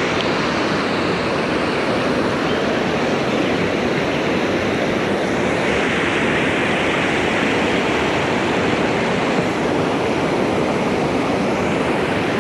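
Steady rush of river water spilling over a low dam and running over rocks in the shallows.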